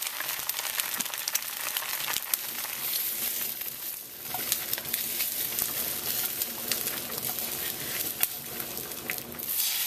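Eggs frying in a pan: a steady sizzle with many small crackling pops.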